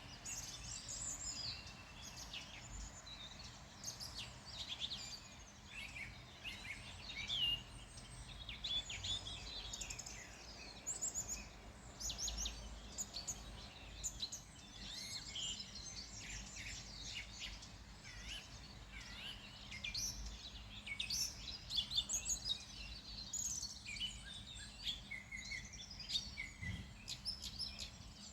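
Wild birds chirping and singing, many short overlapping calls and trills with no pause, over a faint low background rumble.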